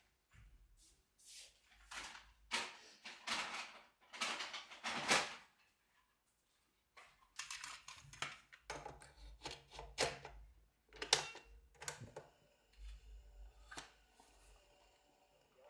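Plastic clicks and rattles of a cassette tape being handled and loaded into a Forest portable cassette radio, with its cassette door being shut. A low hum comes in during the second half, among further clicks.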